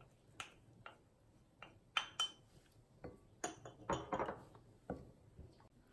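Faint light clinks and knocks of a wooden spoon against a small ceramic dish and a glass mixing bowl, with some scraping as minced garlic is scraped out and stirred into a thick chili seasoning sauce; about a dozen separate taps.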